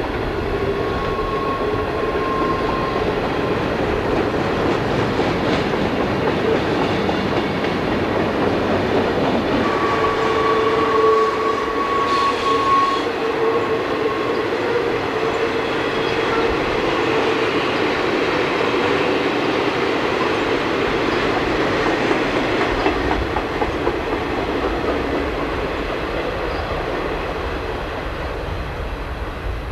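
Freight cars of a Conrail train rolling past on a curve, wheels clicking over the rail joints. A steady wheel squeal rises twice, briefly about a second in and again from about ten to fifteen seconds in. The sound eases off near the end as the last cars pull away.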